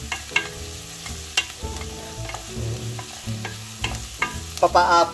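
Wooden spoon stirring onion, garlic and ginger as they sauté in a stainless steel pan: a steady sizzle with irregular sharp taps and scrapes of the spoon against the pan.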